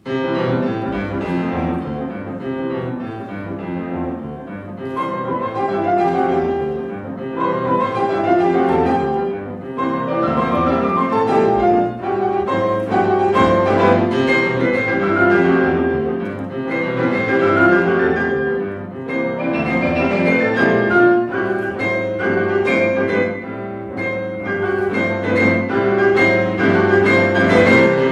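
Grand piano played four-hands by two pianists: a classical piece that begins abruptly at full volume and carries on with full chords and running melody.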